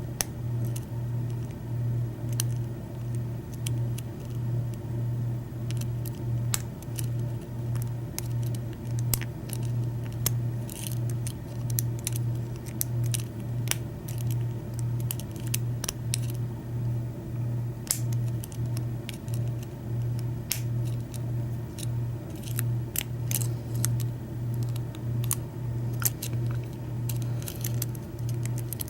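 Steel lock pick clicking and scraping against the pins inside a Schlage-keyway KIK lock cylinder, in small irregular ticks, over a steady low hum that pulses about twice a second.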